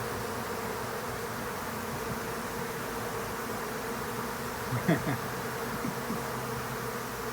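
Steady buzzing hum of a large mass of honeybees, with a brief louder sound about five seconds in.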